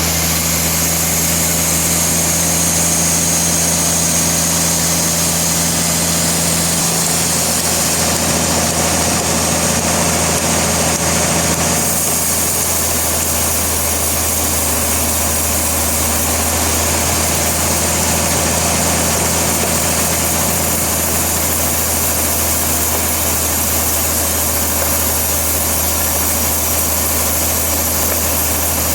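Sawmill machinery running steadily, a constant engine-like drone with a low hum and a high hiss over it. The sound changes slightly about twelve seconds in but never stops.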